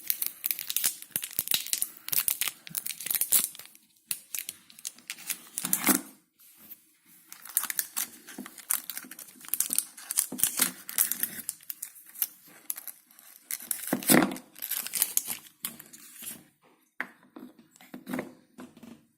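Crinkling and tearing of a dishwasher tablet's plastic wrapper as it is unwrapped by hand, in bursts of crackling with short pauses between.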